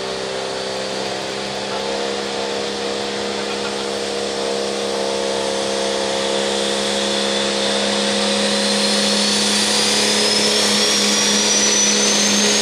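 Pro stock pickup's turbocharged diesel engine running at the line, building slowly, with the turbocharger's whistle rising in pitch over the last few seconds as it spools up.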